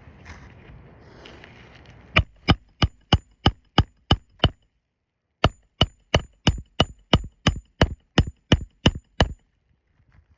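Hand hammer driving roofing nails into an asphalt shingle: quick, even strikes about three a second, a run of eight, then a short pause and about twelve more, each with a slight metallic ring.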